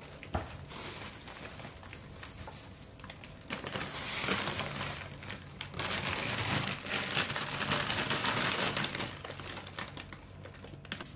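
Thin plastic bags and packaging crinkling and rustling as groceries are lifted out of a shopping bag. It is loudest in two long stretches through the middle.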